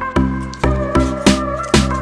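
Background music with a steady beat, about two beats a second, under a held melody.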